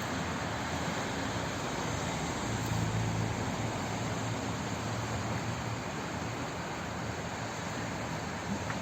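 Flowing water rushing steadily as an even hiss, with a low rumble that swells for a few seconds in the middle.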